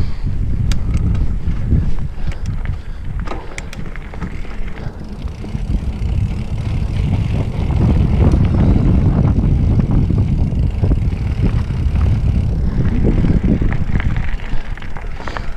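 Specialized Fuse mountain bike rolling fast down a dirt singletrack: steady tyre rumble and wind buffeting the camera microphone, with a few sharp rattles of the bike over bumps in the first few seconds. The rumble grows louder from about eight seconds in.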